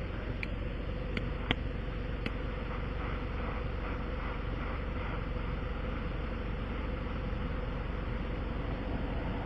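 A steady running hum, like an idling vehicle engine, with a constant tone. A few light clicks come in the first couple of seconds.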